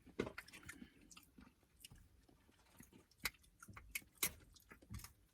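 Faint, close-up chewing and mouth sounds of someone eating buttery crab legs and shrimp, with scattered small clicks and two sharper snaps a little after three and four seconds in.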